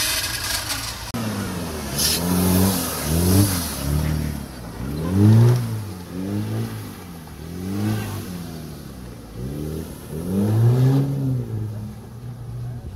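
Off-road vehicle's engine revving up and down repeatedly, its pitch rising and falling about six or seven times.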